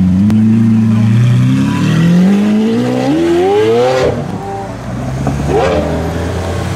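Lamborghini Aventador SV's V12 accelerating away: the engine note climbs steeply for about two seconds and ends in a sharp exhaust crack about four seconds in. The revs drop, rise again briefly into a second crack, then settle to a steady lower note.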